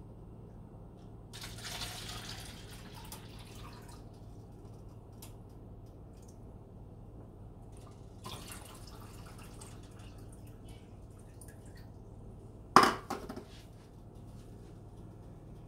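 Water poured from a plastic bottle into a small measuring cup, in two pours of a few seconds each, then a single sharp knock near the end.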